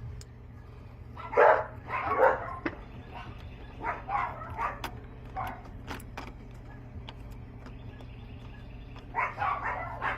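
A dog barking in short bursts: a pair early on, three a few seconds in, and more near the end. Faint small clicks come in between.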